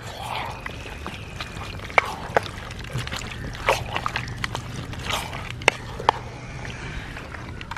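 Wooden ladle stirring chunks of mutton and coconut slices in a large black cooking pot. It makes irregular sharp knocks and clacks against the pot, about half a dozen, over a low steady hum.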